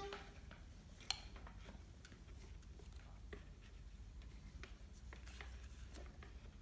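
Quiet room tone with a steady low hum and faint scattered clicks and rustles, one sharper tap about a second in.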